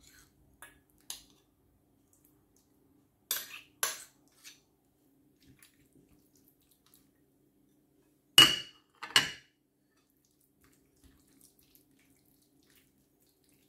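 Metal spoon clinking against a small plate and a glass bowl while scraping out and stirring in cream: a few light taps, two sharper clinks about three seconds in, and the two loudest clinks a little past the middle, one with a brief ring.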